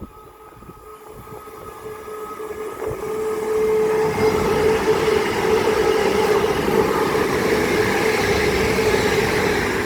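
A pair of Class 350 electric multiple units approaching and running past at speed. The rush of wheels on rail builds over the first four seconds, then holds loud, with a steady tone through it.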